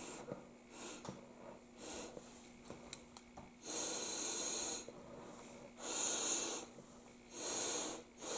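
Breath blown through a drinking straw to push wet ink across the painting. A few faint short puffs come first, then three louder blows of about a second each.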